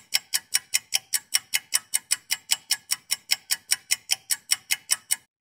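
Ticking-clock sound effect: fast, even ticks about five a second that cut off abruptly near the end, marking time passing.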